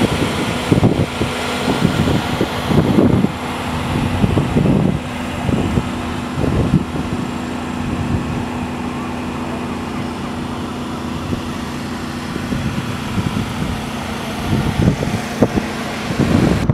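Steady hum of a crane's engine as it hoists a chain-slung platform, with gusts of wind buffeting the microphone every second or two.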